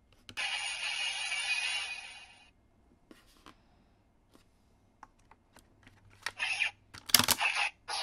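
Bandai CSM Dragvisor toy gauntlet: an electronic whooshing sound effect plays from its speaker for about two seconds, then light plastic clicks as the visor's head is lifted and an Advent card handled, and near the end a loud snap as the visor is shut, with another short burst of electronic sound.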